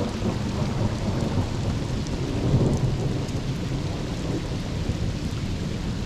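Thunderstorm: rain falling, with a continuous low rumble of thunder that swells a little about two and a half seconds in.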